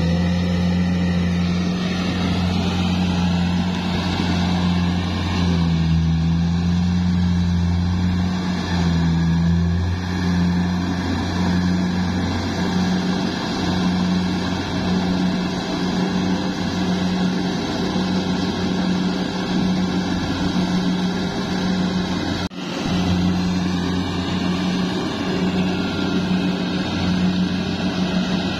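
Kubota DC70 Plus combine harvester's diesel engine running steadily under load while harvesting rice, with a momentary break in the sound about 22 seconds in.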